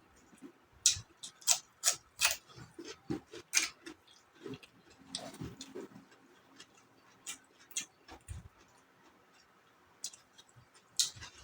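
Close-up mouth sounds of someone eating raw sardine kinilaw: irregular wet clicks and smacks of chewing and lips, clustered in the first few seconds and again near the end, with a brief low hum about five seconds in.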